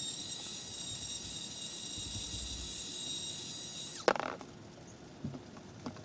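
Handheld mini rotary tool running at high speed with a steady high-pitched whine while grinding down a 4-pin connector so that it fits its mating half. The whine stops about four seconds in with a sharp knock, followed by a few light clicks.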